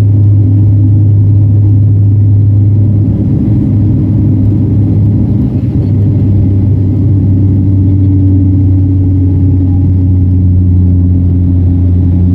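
Turboprop engines and propellers of a Bombardier Q400 heard from inside the cabin at climb power after takeoff: a loud, steady low drone with a strong hum and its overtones. The tone shifts slightly about halfway through.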